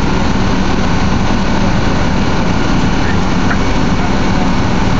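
An engine idling steadily, a constant loud drone with a low hum and no change in pitch or level.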